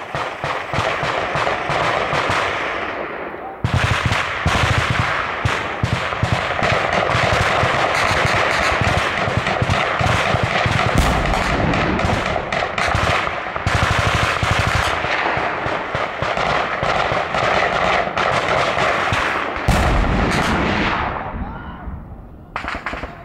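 Dense, rapid gunfire with shots overlapping almost continuously, growing heavier about four seconds in. A heavy low boom comes about twenty seconds in, and the firing thins out just before a last spatter of shots.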